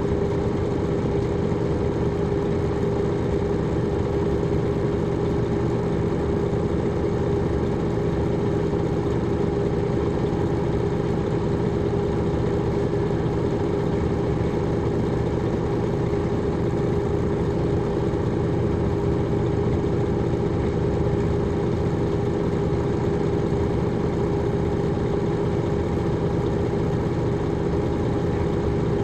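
Detroit Diesel Series 60 diesel engine of an MCI D4000 coach running steadily at constant revs, heard from inside the bus: a low drone with a steady tone over it.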